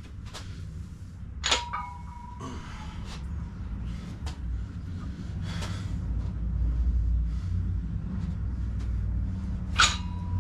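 Two sharp metallic clanks about eight seconds apart, each followed by a brief ringing tone, over a steady low rumble.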